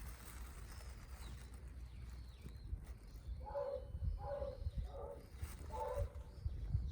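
A bird calls four times in short, two-toned notes over about two and a half seconds, starting about three and a half seconds in, over a low steady rumble.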